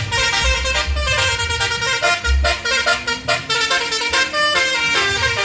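A bus's basuri telolet horn, a multi-tone musical air horn, playing a quick melody of short changing notes, with a low pulsing rumble underneath.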